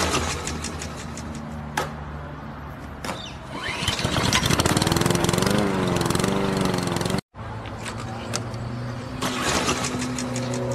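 Lawn mower pull-start sound effect: a rasping starter-cord pull, then a small engine sputtering and running with a steady low hum. The loudest stretch, in the middle, wavers in pitch. The sound cuts out abruptly about seven seconds in, and the pull-start rasp and hum come back near the end.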